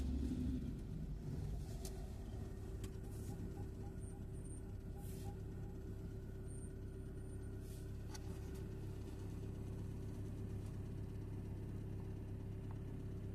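Steady engine and tyre drone of a car driving along a paved road, heard from inside the cabin. Near the start an oncoming lorry passes, briefly louder, then fades.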